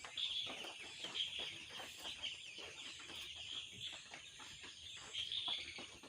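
A flock of two-day-old broiler chicks peeping continuously, a dense high chatter of many overlapping calls, with many short clicks mixed in.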